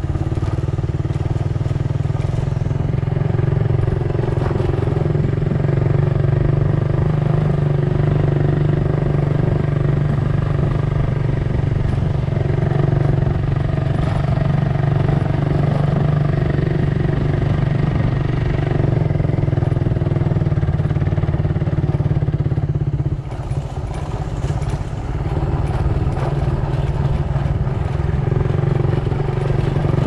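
Vehicle engine running steadily, easing off briefly about three quarters of the way through.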